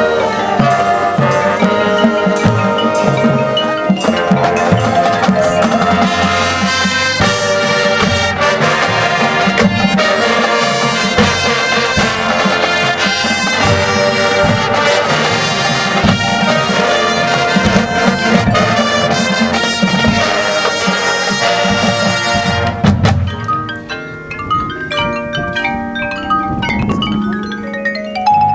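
Marching band playing: brass with drums and mallet percussion (marimba, xylophone, glockenspiel). About 23 seconds in the full band drops away and the mallet instruments carry on alone with sparse, separate notes.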